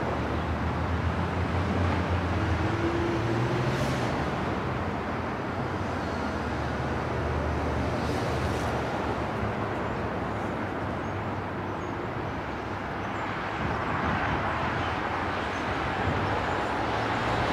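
Distant diesel freight locomotives approaching, a low steady engine drone under a wash of outdoor noise that gets a little louder near the end.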